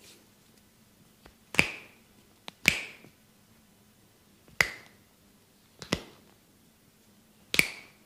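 Five sharp snaps from a barber's hands during a massage, a second or two apart, some with a faint click just before.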